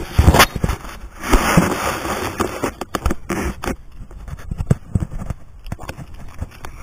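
Handling noise close to the microphone: scraping and rubbing with many small knocks and clicks. A denser stretch of rustling comes about a second in.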